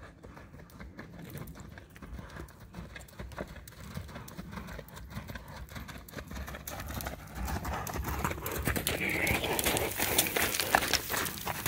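Hoofbeats of a ridden horse on sand arena footing, a quick run of dull strikes that grows louder as the horse comes close and passes about ten seconds in.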